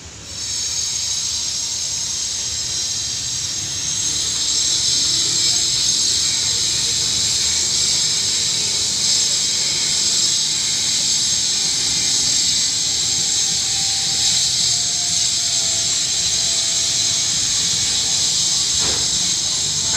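Nice Run HS1200 sliding-gate operator running, driving the gate: a steady, high hissing whine that starts abruptly and grows a little louder about four seconds in.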